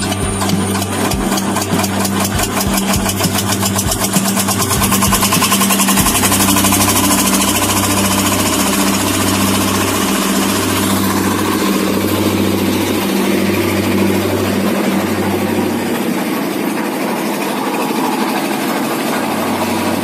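Concrete mixer's engine running steadily with a rattling clatter, a little louder for a few seconds around the middle.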